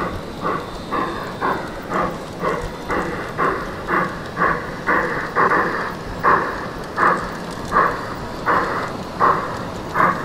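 Garden-scale model train running, with a steady chugging beat of about two chuffs a second.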